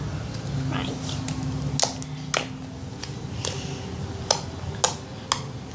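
Firm homemade strawberry cream slime being worked by hand, giving about six short, sharp clicks and pops over the last few seconds, over a steady low hum.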